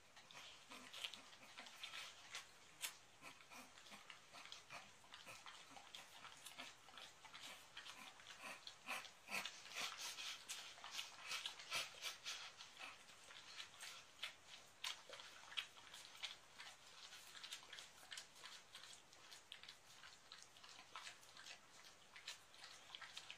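A dog fussing close by: a stream of irregular clicks and scuffles, with a few faint whines in the first few seconds.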